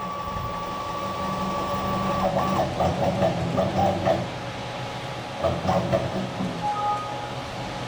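Stepper motors driving the mill table along its ballscrew toward the end of travel, a steady whine with a low hum that stops about four seconds in. A few short, quieter mechanical sounds follow near the end.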